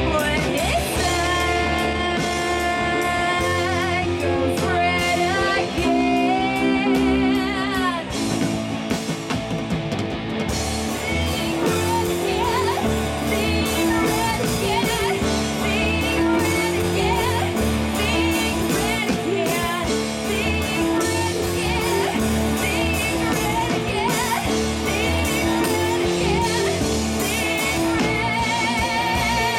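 Live rock band playing: a woman singing lead over electric guitars, bass guitar and a drum kit.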